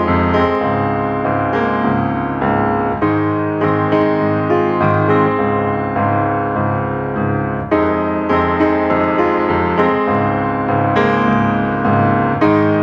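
Background music: piano playing a gentle melody with chords, notes struck in a steady rhythm.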